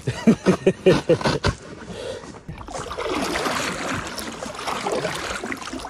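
Kayak paddling: paddle blades dipping and water washing steadily along the hull as the boat moves across the lake, after a short run of knocks and shuffling at the start.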